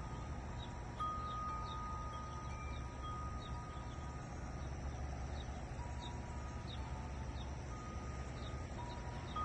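Wind chimes ringing, several long tones that start at different moments and fade slowly, over a steady low background noise, with faint short high chirps.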